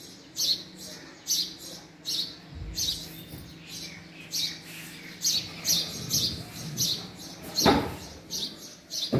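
Male house sparrow chirping: a steady series of short, high cheeps, about one to two a second, over a faint low hum. About three-quarters of the way through, a brief louder rushing noise cuts across the chirps.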